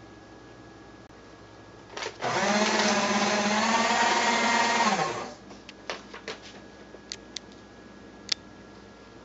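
Electric paper shredder starts about two seconds in after a brief blip, runs steadily for about three seconds, then winds down with a falling pitch. A few light clicks and taps follow, with one sharper click near the end.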